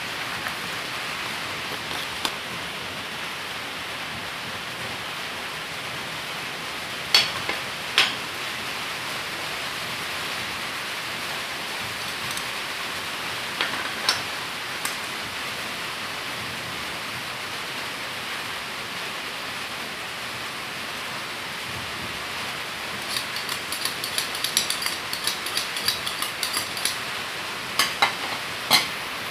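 Metal spoon clinking and scraping against a metal mixing pan of banana cake batter: a few single clinks, then a quick run of clinks near the end as the batter is stirred, over a steady background hiss.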